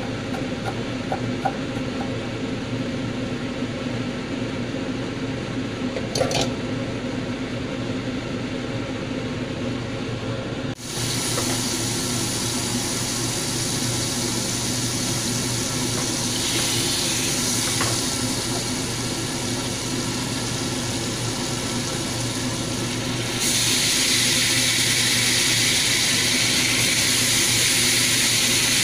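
A knife taps a few times on a wooden chopping board, then butter sizzles in a hot frying pan as an even hiss. Later on the sizzle turns louder and brighter as beef steaks go into the pan, over a steady low hum throughout.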